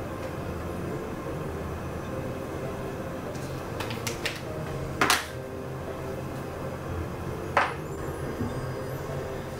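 Sharp clicks and light knocks of makeup compacts and palettes being opened, closed and set down on a vanity counter. There are a few small clicks around four seconds in and louder single clicks about five seconds and seven and a half seconds in, over a steady background hum.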